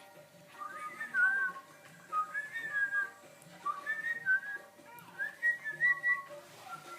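A person whistling in four short phrases of gliding notes, with pauses between them.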